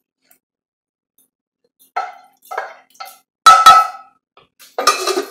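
Wooden spoon knocking and scraping against a saucepan as the last of the pasta sauce is emptied into a baking dish. A few short knocks and clinks start about two seconds in, with the loudest pair of knocks in the middle.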